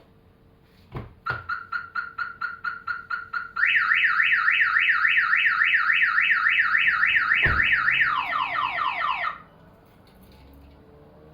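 Aftermarket Viper 3706V car alarm siren running through its tone cycle. It starts with quick repeated chirps at about four a second, then switches to a loud, rapid up-and-down warble, then to falling sweeps, and cuts off suddenly near the end. A click comes just before it starts and a thump partway through.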